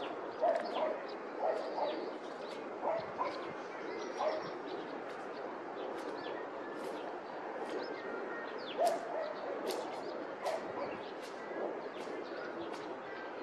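Outdoor ambience: a dog barking on and off, about half a dozen times, with small birds chirping in short high chirps over a steady background hiss.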